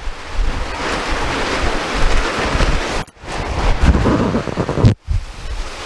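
Strong gusting wind and rain in a storm, buffeting the microphone with a heavy low rumble, with a plastic silage tarp flapping and rustling in the wind. The sound cuts out briefly twice, about three and five seconds in.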